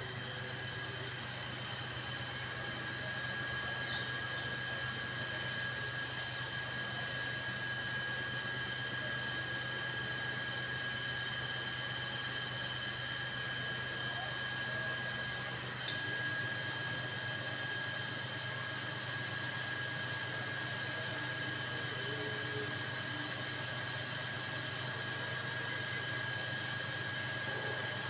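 A steady high-pitched whine over a low hum, unchanging in pitch, with a faint click about sixteen seconds in.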